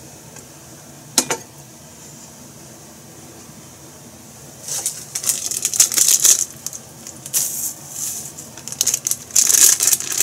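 Plastic packaging crinkling and rustling in irregular crackly bursts from about halfway on, growing busier near the end, after a single sharp click about a second in.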